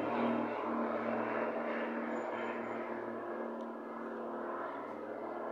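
Piper Seneca's twin Continental TSIO-360 engines and propellers giving a steady pitched drone as the aircraft flies away overhead, fading steadily.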